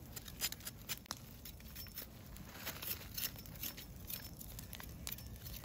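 Knife blade scraping the singed hair off a fire-charred goat's head: irregular short scratchy strokes and clicks.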